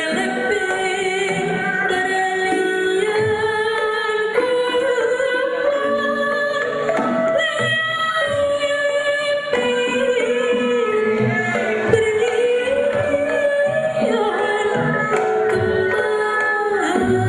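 A Sundanese sinden (female gamelan vocalist) singing a slow, drawn-out melismatic line of sekar kepesindenan, the pitch gliding and wavering, accompanied by a rebab (two-stringed bowed spike fiddle).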